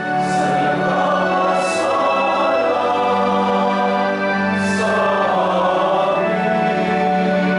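Choir singing a slow liturgical chant in sustained notes over a steady low note, with a few soft hissing consonants about a second in and near the middle.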